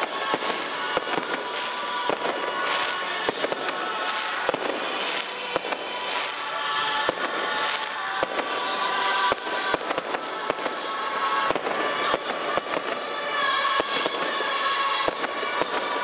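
Aerial fireworks going off in a rapid, uneven run of bangs and crackles.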